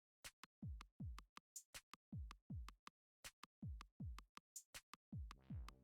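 Quiet background electronic music: a drum-machine beat of deep, falling kick drums and crisp hi-hat clicks. Sustained synth chords come in near the end.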